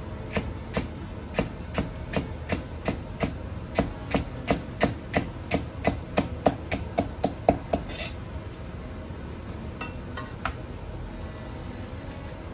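Knife chopping against a cutting board while julienning green peppers: quick, even strokes about three a second, a little faster toward the end, stopping about eight seconds in, then a few light knocks.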